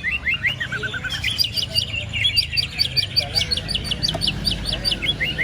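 Caged songbirds singing at a bird contest: a fast, even run of sharp, high chirps, about eight notes a second, dropping in pitch on each note.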